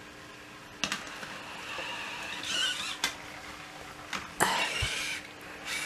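Sony aibo ERS-311 robot dog moving: a soft whirring rustle of its motors with a few sharp plastic clicks, about a second in, at three seconds and near four and a half seconds.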